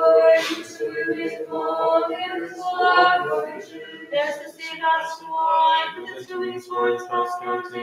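Unaccompanied voices chanting a Byzantine vespers hymn, sung in sustained notes that change pitch every half second to a second.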